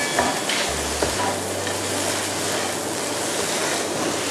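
Stir-fry of fish maw and bean sprouts sizzling in a nonstick frying pan with very little oil, while a spatula scrapes and tosses it, with a light tap about a second in.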